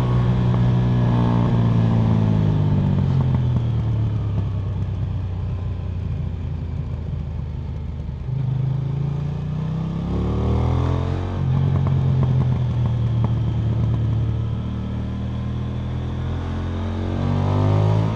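KTM 990 Duke motorcycle engine and exhaust running. The engine speed falls over the first few seconds, holds steady, climbs again about halfway through, and rises once more near the end.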